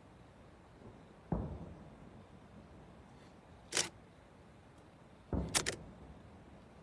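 A dull thump, then a single sharp click, then another thump with two quick clicks close together.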